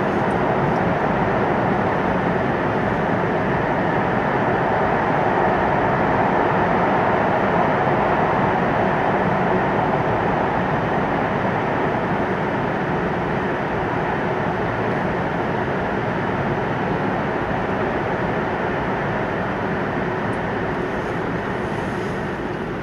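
Hokkaido Shinkansen Hayabusa train running at speed, heard from inside the passenger car: a steady rushing rumble of wheels on rail and air, easing off slightly near the end.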